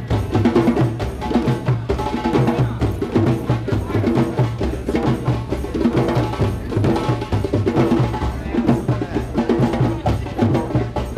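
Drum circle: many hand drums and a large frame drum struck with a stick playing together in a fast, steady, dense rhythm, with a pulsing low drum beat under many sharp strokes.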